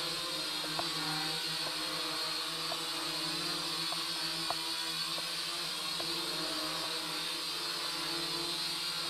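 Small toy quadcopter drone hovering low, its four propeller motors giving a steady, even buzz, with a couple of faint ticks.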